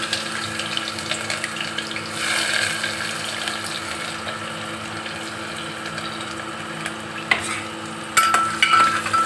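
Chopped onion frying in hot oil in an open aluminium pressure cooker, a steady sizzle. From about eight seconds in, sharp clinks and scrapes of a spoon stirring against the pot.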